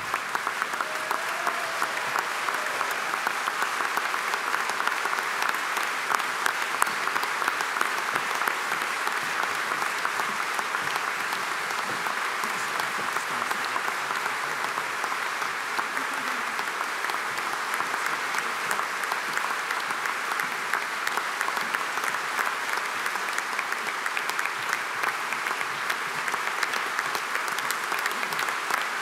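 Large assembly applauding: many people clapping at once, steady and unbroken.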